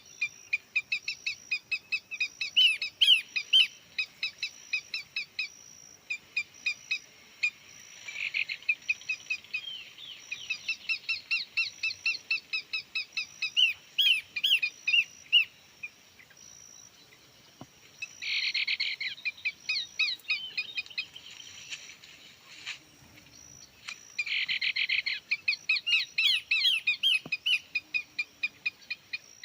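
Small birds chirping in fast runs of short repeated notes that stop and start, with two brief dense buzzy trills in the second half. A faint high note pulses evenly throughout.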